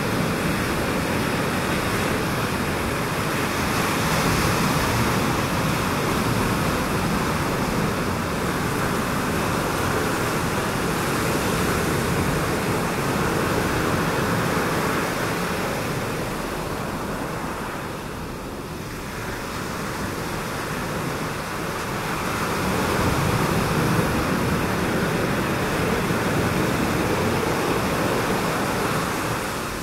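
Ocean surf: a steady wash of breaking waves that swells and eases, dipping briefly about two-thirds of the way through.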